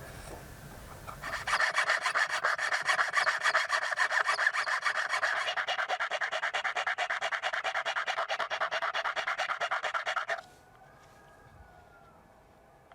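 Metal coin being abraded by hand with rapid, even back-and-forth strokes, as in filing or sanding it into a lure blade. The stroking starts about a second in and stops abruptly about ten seconds in.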